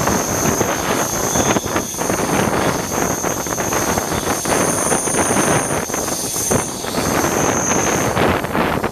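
Passenger train running at speed, heard from on board: a steady rush of wheel rumble and rail clatter with wind buffeting the microphone. A thin, high, steady whine sits above it most of the way through.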